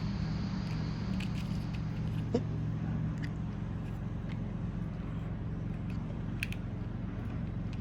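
A few faint plastic clicks and taps as a toy train's pieces are handled and fitted together, over a steady low background hum.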